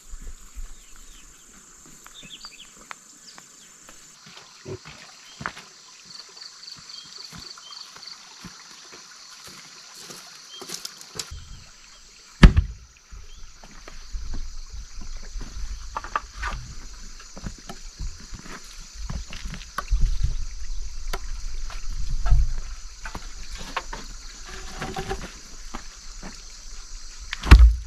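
A heavy hollowed wooden log, a pig trough in the making, being handled and set down on dirt ground: scattered knocks and several dull thumps, the loudest about twelve seconds in.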